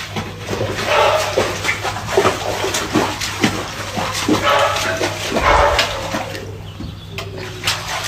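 A dog barking repeatedly in short, sharp barks, over a steady low hum.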